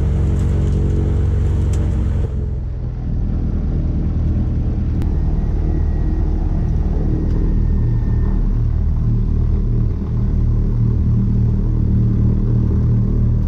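Light aircraft's propeller engine running steadily, heard from inside the cabin. About two seconds in, the higher hiss drops away abruptly while the low engine tones carry on.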